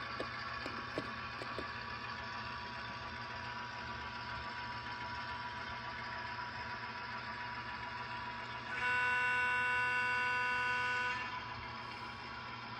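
Model railroad train with a sound-equipped diesel locomotive running on, a steady mechanical hum, with a few light clicks of model wheels over rail joints in the first two seconds. Near the end the locomotive sounds one horn blast of about two and a half seconds, a chord of several steady notes that starts and stops sharply.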